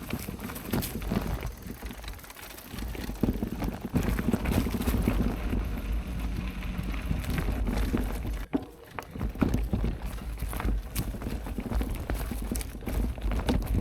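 Mountain bike rolling over a rough, rocky dirt trail: tyres crunching and the bike rattling with many small knocks, over a steady rumble of wind on the microphone. The noise dips briefly about halfway through.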